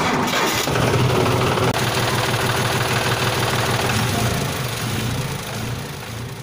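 Engine running, heard as a sound effect: a steady low engine note that starts abruptly and fades out over the last two seconds or so.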